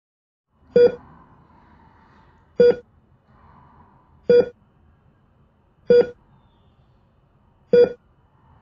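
Heart monitor beeping: five short, identical mid-pitched beeps, one about every 1.8 seconds, like a steady pulse.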